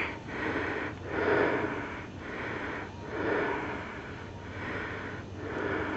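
A person breathing hard close to the microphone after a steep uphill climb, a string of noisy breaths at about one a second.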